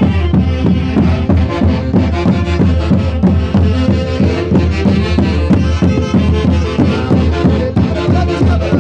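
Loud live music from a Peruvian orquesta típica of the central Andes playing Santiago music, dense and continuous with a steady, even beat.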